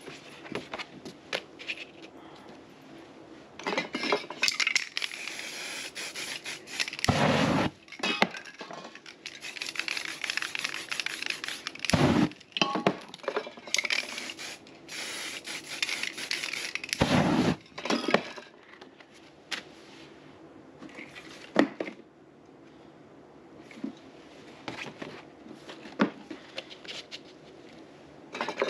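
Aerosol spray-paint cans hissing in several bursts of a few seconds each, with scattered metallic clinks and three sharp knocks between them.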